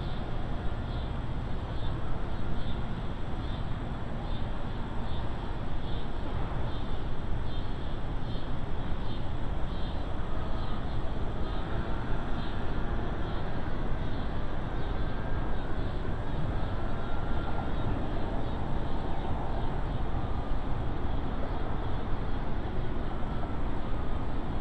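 Steady outdoor rumble, heaviest in the low end, with a faint high pulsing chirp over it and a few faint whistle-like tones about halfway through.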